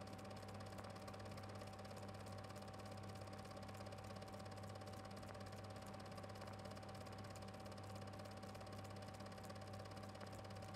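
Faint, steady low hum with a thin, steady higher tone over it, unchanging throughout.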